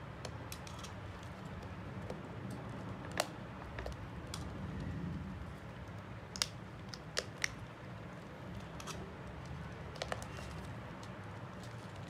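Scattered small, sharp clicks and taps of hands and tools working on a smartphone under repair, a few louder ones spaced irregularly, two of them in quick pairs, over a steady low hum.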